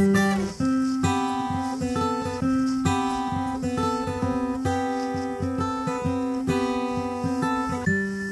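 Background music: an acoustic guitar picking a steady run of notes over a changing bass line.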